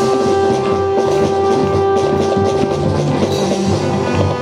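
Children's drum corps playing a marching tune: drums beating under one long held melody note.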